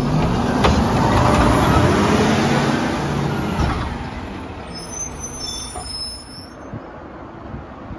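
Mack LR garbage truck's diesel engine revving up as the truck pulls away, loud at first and then fading over the last few seconds as it moves off.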